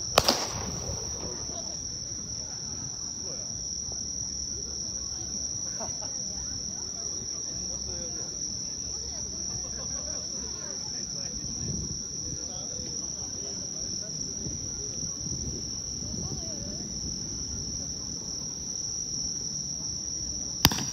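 Crickets trilling in one steady, unbroken high-pitched chorus, with a short sharp crack just at the start and another near the end.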